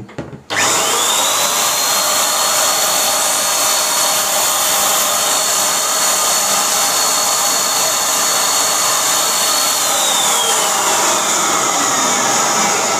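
Buildskill BPS1100 650 W HVLP electric paint sprayer's turbine unit switched on: about half a second in it spins up to a steady high whine over a loud rush of air. Nearly ten seconds in the whine starts falling slowly in pitch as the motor winds down.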